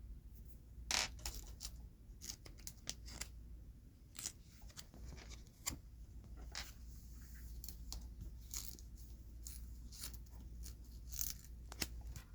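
Hands handling jumbo Pokémon cards: an irregular run of short, crisp rustles, clicks and taps, with one sharper click about a second in.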